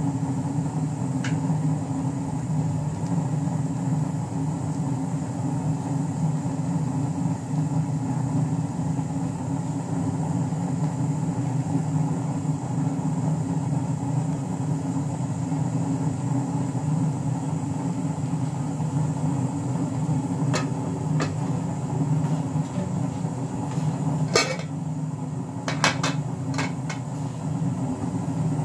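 A steady low rumbling hum throughout. In the last few seconds there are a few sharp metallic clicks and knocks as a steel pot is set down on the gas stove.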